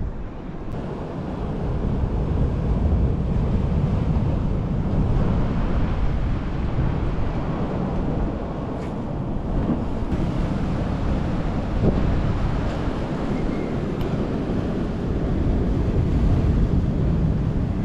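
Wind buffeting the microphone, over the steady wash of sea waves.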